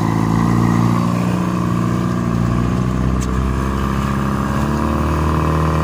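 Outrigger fishing boat's engine running steadily at a constant pitch.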